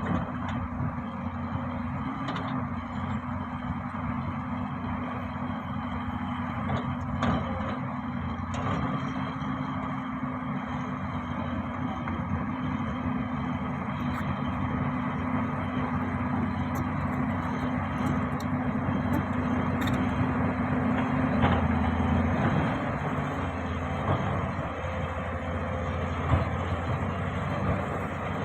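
Heavy earthmoving machine's engine running steadily, its note shifting lower about three quarters of the way through.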